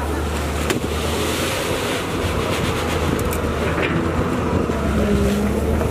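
Steady wind rumbling on the microphone outdoors, with faint voices near the end.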